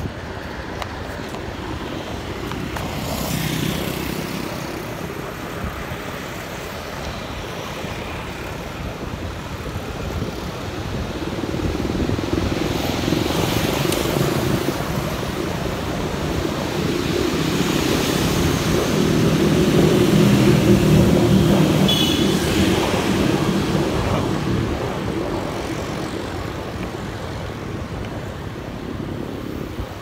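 Road traffic heard from a moving bicycle: motorcycles and small minibuses passing, their engine sound swelling and fading several times, loudest about two-thirds of the way through.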